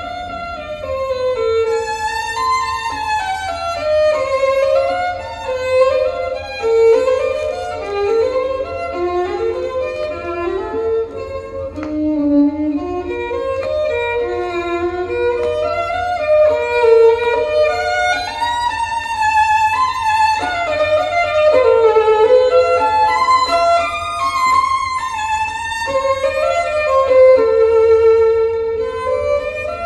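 Violin music played back over a hi-fi system from a vinyl record on a turntable, heard through large horn loudspeakers in the room: a flowing, singing melody with a steady low hum underneath.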